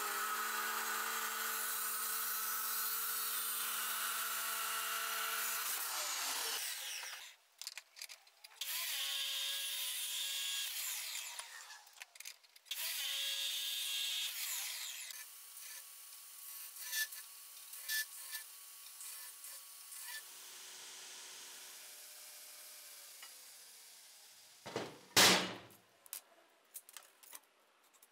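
Abrasive cut-off chop saw cutting through square steel tube in three passes, a long cut and then two shorter ones, with a whine that falls away after the cuts. A single sharp knock comes near the end.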